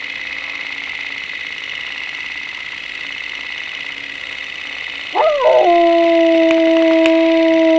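A dog howling: about five seconds in, one long howl that swoops up and then holds a steady pitch, over a steady high hiss.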